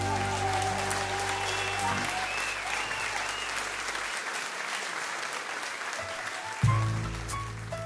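Audience applauding as a piece of music ends, its sustained last notes dying away in the first two seconds. Low notes of the next piece come in near the end.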